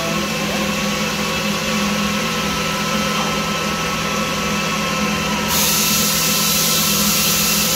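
Steady electric machinery hum with a thin high whine from the CNC router setup. A hiss in the upper range steps up and stays louder about five and a half seconds in.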